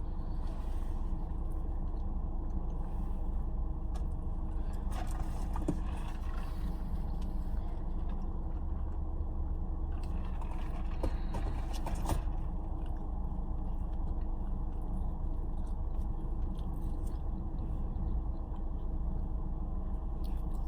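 Car engine idling steadily, a low, even hum heard from inside the cabin, with a few faint clicks and rustles now and then.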